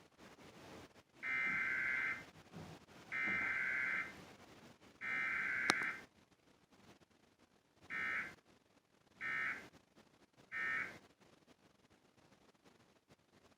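Emergency Alert System SAME data bursts, a warbling electronic screech: three bursts of about a second each, then three short bursts, the pattern of the header tones followed by the end-of-message code.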